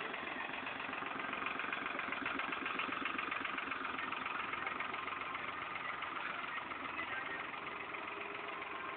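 New Holland tractor diesel engine running steadily under load as it drags a rear grading blade through soil.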